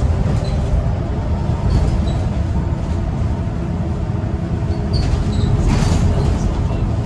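Scania L94UB bus heard from inside the saloon while driving at steady speed: a constant low drivetrain and road rumble, with a faint steady whine from the ZF automatic gearbox. A short hiss comes about six seconds in.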